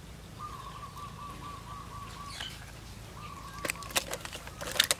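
A bird trilling faintly, a rapid run of repeated notes on one pitch, heard twice. In the second half, sharp clicks and crackles from catfish and a bamboo skewer being handled in a woven bamboo basket, loudest near the end.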